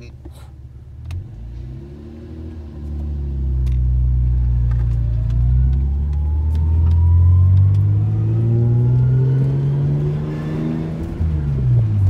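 Lexus SC300's inline-six engine accelerating, heard from inside the cabin. The revs climb from about three seconds in, ease briefly about halfway as the gear lever is moved, climb again, then drop sharply near the end.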